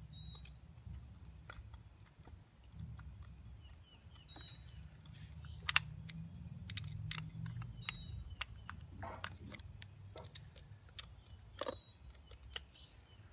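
Small metallic clicks and taps of a screwdriver and carburetor parts being handled during reassembly, the loudest about six seconds in. A bird repeats a short high call about every four seconds over a low steady rumble.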